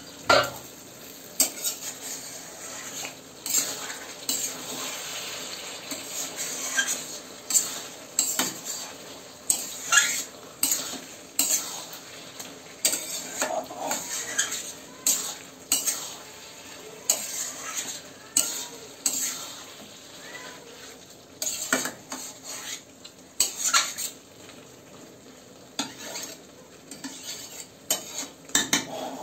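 Metal spatula scraping and knocking against a kadai again and again as spiced mutton is stirred and turned, with a low sizzle underneath. The meat is being kosha'd, fried down in its masala until the oil separates.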